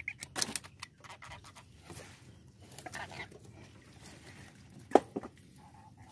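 Scattered knocks, clicks and scrapes of a wire-mesh traditional fish trap being handled against a wooden boat, with one sharp, loud knock about five seconds in.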